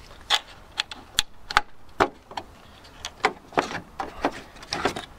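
A quick, irregular run of about a dozen sharp clicks and knocks from hard plastic engine-bay covers being handled and unclipped.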